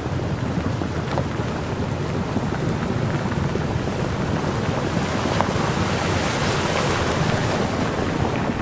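Flash-flood floodwater rushing steadily with a deep rumble; the hiss grows a little about five seconds in.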